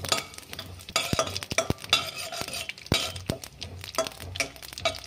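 Metal spatula stirring whole coriander seeds and cumin in hot oil in a steel kadhai, with many quick scrapes and clinks against the pan over a light sizzle.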